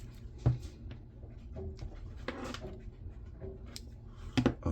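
Scattered light clicks and knocks of small scrap parts and tools being handled on a workbench, with one sharp click about half a second in and a couple more near the end.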